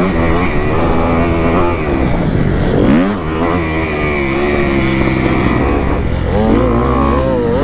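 Kawasaki KX250F dirt bike engine revving hard and backing off over and over as it is ridden around a motocross track, its pitch climbing and dropping with the throttle and gear changes.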